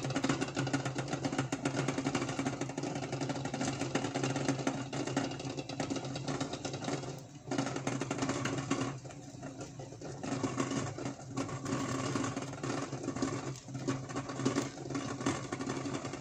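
Eggs boiling hard in a lidded stainless steel pot on a gas burner: a fast, steady bubbling rattle that dips briefly about halfway through.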